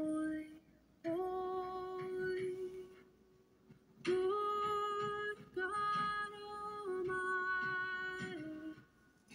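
Slow intro melody of long, steady held notes in a few short phrases with brief pauses between them, the pitch stepping from note to note.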